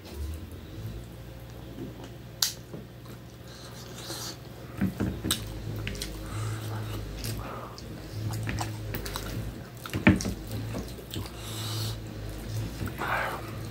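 Close-miked eating by hand: chewing and smacking of a mouthful of rice, with a low pulsing rumble and several sharp clicks. The wet squish of fingers mixing rice with curry on a plastic plate comes in between.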